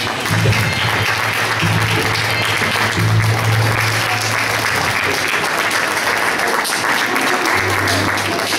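A theatre audience applauding steadily, with music playing underneath.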